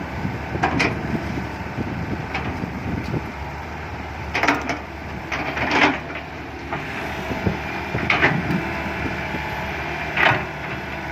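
Komatsu PC120-5 excavator's diesel engine running steadily while its bucket works soil, with about six short scrapes and clunks from the bucket and soil a second or two apart.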